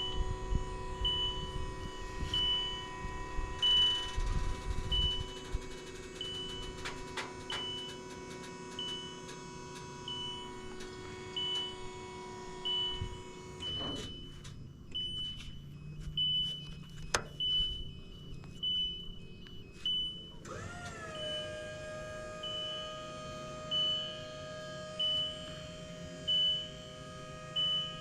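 Electric boom lift running, its motor whining at a steady pitch with a high alarm beep repeating a little more than once a second. The whine stops a little past halfway, then starts again with a slide in pitch after a few seconds, while the beeping goes on.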